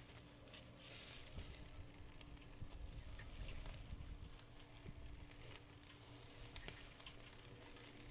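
Melted butter faintly sizzling and crackling on a hot spatchcocked chicken in a Pit Barrel Cooker as it is basted with a silicone brush.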